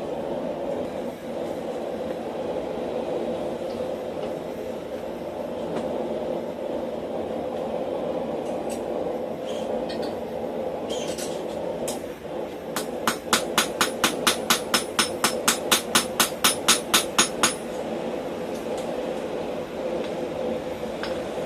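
Blacksmith's hammer striking steel on the anvil: a few single knocks, then a fast, even run of light blows, about six a second for some five seconds, over a steady rumbling hum.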